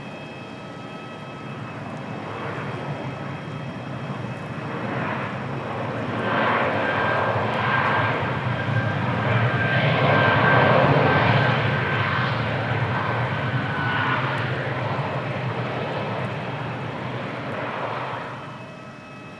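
Jet airliner's engines passing close by: the noise swells to a peak about halfway through, with a steady high whine through the middle, then drops away near the end.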